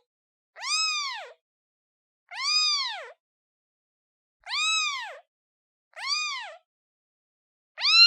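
Newborn kitten meowing for its mother: four high meows, each rising and then falling in pitch and lasting under a second, spaced about one and a half to two seconds apart, with a fifth starting right at the end.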